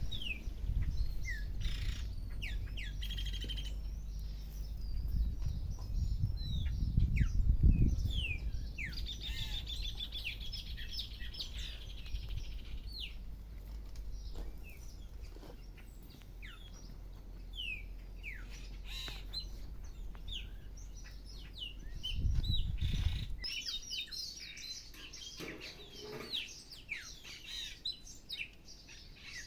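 Many birds chirping and calling: short falling chirps and a rapid trill about ten seconds in. A low rumbling noise runs under them for the first eight seconds and comes back briefly about twenty-two seconds in, the loudest part of the sound.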